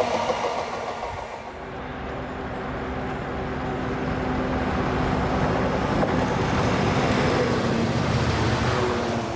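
Railway locomotive running, a steady droning note over a low rumble that grows louder over several seconds.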